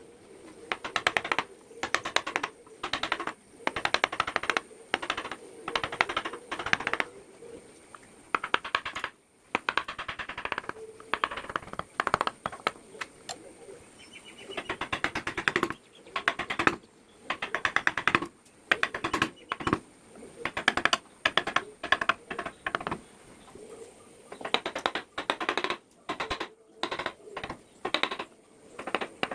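Hand carving tools working teak wood: short bursts of rapid clicking taps, roughly one burst a second.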